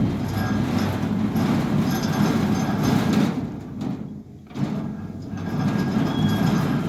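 Centurion D5 Evo sliding gate motor driving a steel sliding gate along its track during the automatic setup cycle, a steady mechanical running sound; it now runs on a new controller card. The running dies away and stops for a moment about four seconds in, then starts again.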